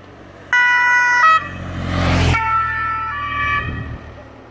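Two-tone siren of a race escort vehicle, alternating between two pitches about every 0.7 s. A vehicle passes close by partway through: its noise swells to a peak about two seconds in and cuts off sharply.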